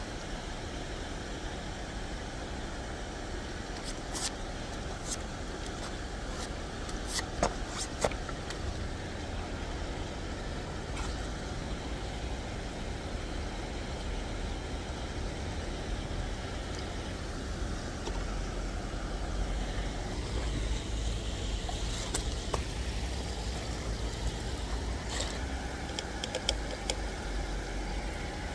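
Steady low outdoor rumble, stronger in the second half, with a few sharp clicks and taps about four to eight seconds in and again near the end.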